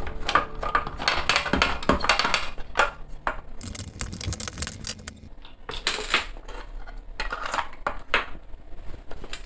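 Clicks, clinks and scrapes of a screwdriver backing screws out of a plastic hot air gun housing, and the shell knocking on the desk as it is handled and taken apart.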